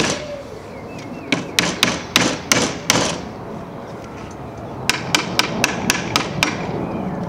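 Hammer tapping the corners of wooden canvas stretcher bars to seat the joints snugly together: a run of about six sharp taps, then after a pause a quicker run of lighter taps.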